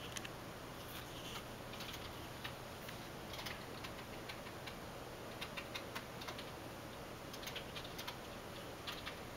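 Scattered light clicks and taps at an irregular pace, coming in quicker clusters past the middle and near the end, over a steady background hiss.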